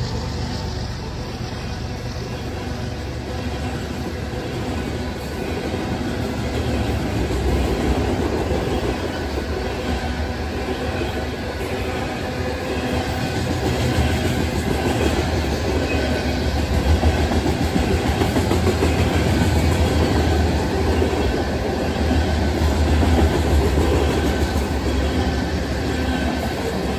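Freight train of covered hopper cars rolling past at a crossing: a steady, continuous rumble and rattle of steel wheels on the rails.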